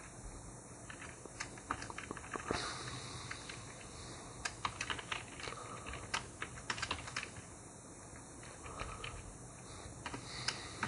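Faint typing on a computer keyboard: irregular keystrokes in short runs with brief pauses between them.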